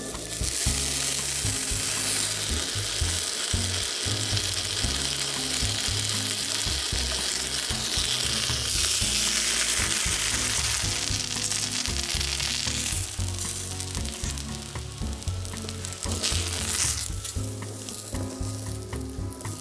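Flour-dusted eggplant halves frying in hot oil in a frying pan: a steady sizzle that thins out after about thirteen seconds and is fainter near the end.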